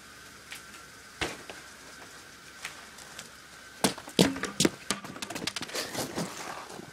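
A unicycle landing on concrete after a drop off a two-foot ledge: one sharp thump about a second in. From a little before halfway, a run of loud knocks, scuffs and clicks close by as the rider's boots step up and the unicycle is set down on the concrete.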